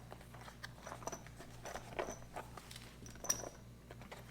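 Light rustling and scattered small clicks and knocks as ration packaging and its small contents are handled.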